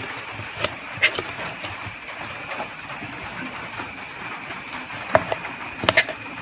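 A few light clicks of a utensil against a serving dish, about a second in and twice more near the end, over a steady background hiss.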